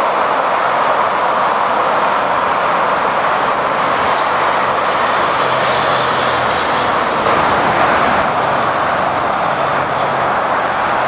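Jet airliner engines heard on a landing approach: a loud, steady rushing roar with a faint low hum under it.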